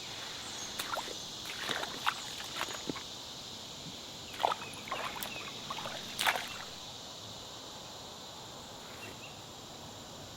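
Steady high drone of insects, with a scatter of short splashes and clatters of water and handling over the first seven seconds; the loudest come about four and a half and six seconds in.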